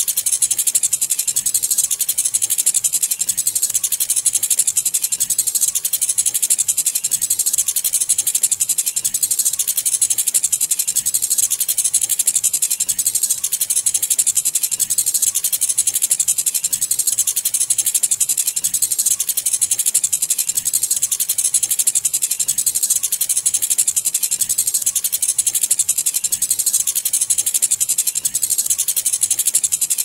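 Continuous fast, high-pitched rattling that runs without a break, with no clear tone or beat.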